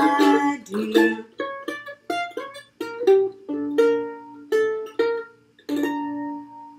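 Mandolin played solo: a slow closing phrase of about ten picked notes and chords, each struck sharply and dying away, ending on a final chord that rings on and fades out.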